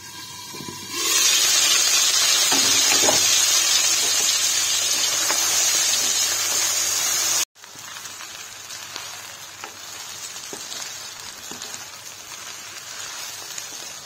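Chow mein noodles stir-frying in a hot wok with a loud, steady sizzle that starts about a second in. Halfway through it drops suddenly to a quieter sizzle, with light scrapes and taps of the spatula as the noodles are tossed.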